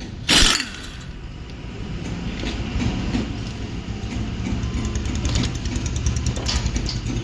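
Impact wrench loosening a car's wheel nuts: a short loud burst just after the start, then from about two seconds in a fast, steady hammering rattle.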